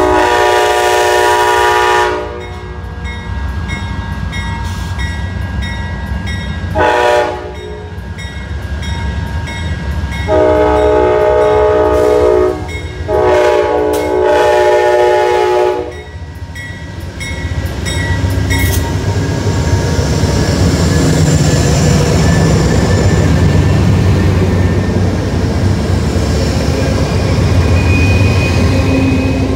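Amtrak P42DC Genesis diesel locomotive blowing its horn for a grade crossing: a long blast, a short one, then a final long one broken briefly, over the steady ringing of the crossing bell. From about halfway through, the locomotive and its two-level passenger cars rumble past close by, with wheel and rail noise.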